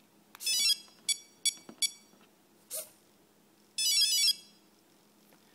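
Electronic start-up beeps of an electric RC helicopter as its flight battery is plugged in: a short chirping run of tones, three short beeps, then a second, longer chirping run of tones near the end. A brief hiss falls between them.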